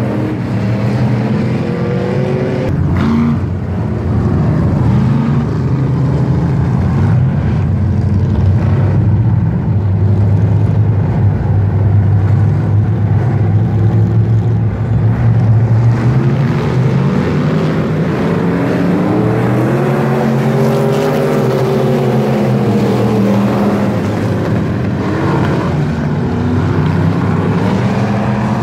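Several dirt-track race cars running laps together, their engines revving up and down so that the pitch rises and falls throughout.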